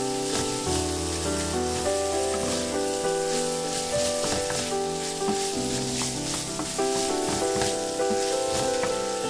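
Diced Cantonese sausage and minced pork sizzling in oil in a nonstick frying pan, stirred with a wooden spatula. Background music plays over it.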